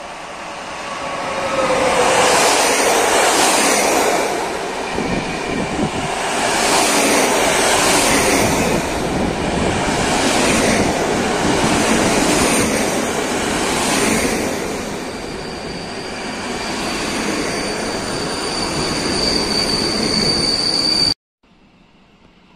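A PKP Intercity EU160 Griffin electric locomotive and its passenger coaches run in along a station platform, with a steady rail rumble that surges each time a set of wheels passes, about every two seconds. Near the end a high steady brake squeal grows as the train slows to a stop, and then the sound cuts off abruptly.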